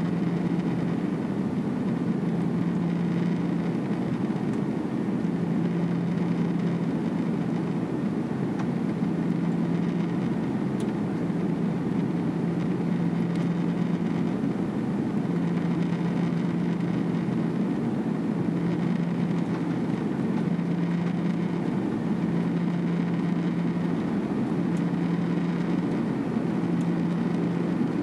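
Airbus A330-300 cabin noise during the climb after takeoff: a steady drone of jet engines and rushing air, with a low hum that drops in and out every second or two.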